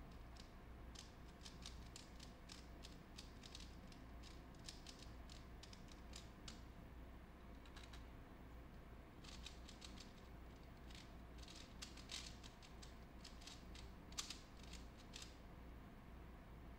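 3x3 Rubik's cubes turned fast by hand: quick runs of faint plastic clicking as the layers snap round. The clicking pauses for about two seconds near the middle, as the first solved cube is set down and the second is picked up, then picks up again, over a faint steady low hum.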